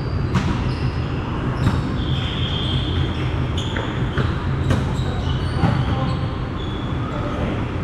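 Indoor volleyball rally: sneakers squeaking again and again on the court floor, with several sharp smacks of the ball being hit, over a steady low rumble.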